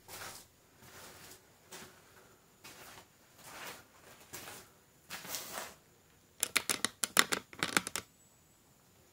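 Yellow rubber work gloves being pulled onto the hands, a series of soft rustling swishes. Near the end comes a quick run of sharp, close clicks and taps, the loudest sounds.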